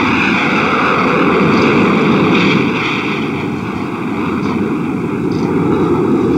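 A loud, steady rushing roar on a film soundtrack, with a hollow tone, swelling slightly near the end.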